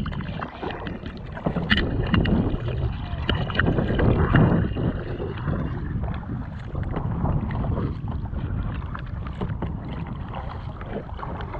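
A kayak paddle dipping and splashing in stroke after stroke, with water sloshing against the kayak's hull, and wind buffeting the microphone with a low rumble that swells and ebbs.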